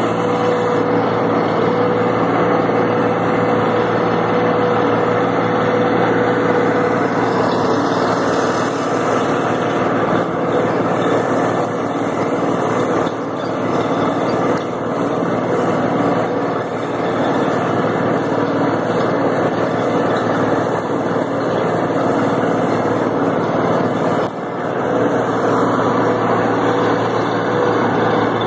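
International Harvester 1256 tractor's turbocharged six-cylinder diesel running steadily under load while pulling a disc chisel through the soil.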